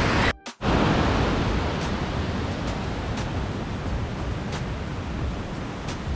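Steady rushing of a fast, swollen mountain river, high after days of heavy rain. The sound cuts out briefly about half a second in.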